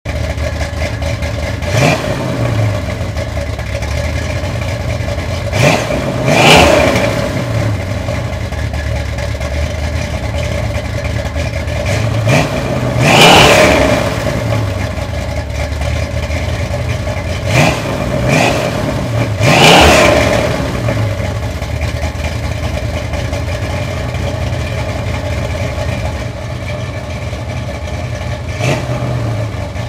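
Exhaust of a 1972 Dodge Dart Swinger's 360 small-block V8 with a 284/484 Mopar Performance purple shaft cam, running through stock manifolds and 2.5-inch pipes into dumped 40-series Flowmaster mufflers. It idles and is revved repeatedly, in several short blips and three longer revs that rise and fall back to idle.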